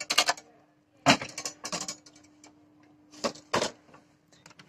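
Clicks and rattles of an opened mini hi-fi's chassis and board connectors being handled: a few sharp clicks at the start, a short clattering run about a second in, and two more clicks near the end, over a faint steady hum.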